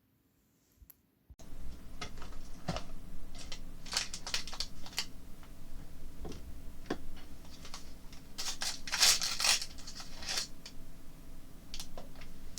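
Plastic wrapping and packaging of a blind-box doll being handled and torn open: irregular crinkling, tearing and small plastic clicks and taps, starting abruptly after a moment of near silence.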